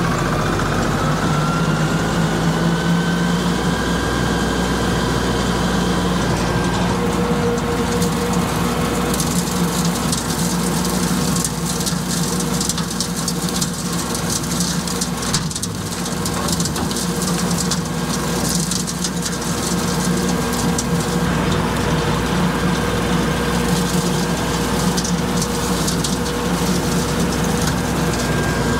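LS diesel tractor running with its PTO-driven bush hog (rotary cutter) turning, a steady engine hum with a whine that rises in pitch over the first few seconds. From about seven seconds in, dense crackling and snapping as the cutter chops through brush.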